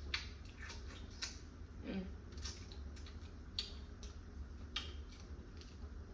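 Close-up eating sounds of a person working through a blue crab: irregular sharp clicks and soft wet smacks of chewing and picking at the crab, over a low steady hum.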